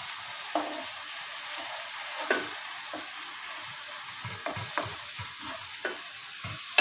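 Keema with onion, tomato and spices sizzling in a non-stick frying pan as it is fried, with a steady hiss. A spatula stirs it, scraping and tapping the pan at irregular moments, about eight times.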